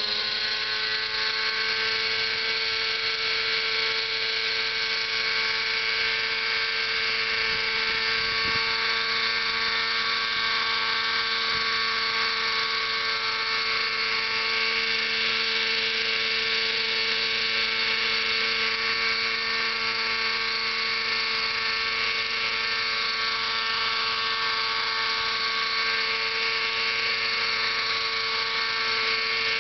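Single-cylinder two-stroke nitro (glow) engine of an RC helicopter at high revs, a high-pitched whine with the rotor blades whirring; its pitch finishes climbing in the first second, then holds steady while the helicopter lifts off and hovers.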